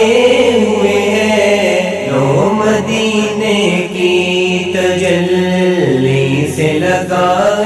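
Wordless male vocal chant humming a slow, gliding melody over a steady low vocal drone: the closing passage of a naat.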